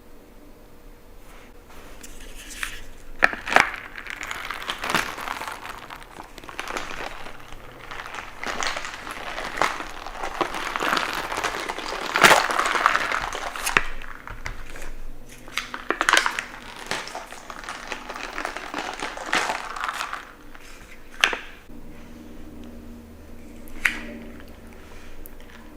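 Plastic packaging crinkling and rustling as it is handled, in uneven bursts with sharp clicks and crackles.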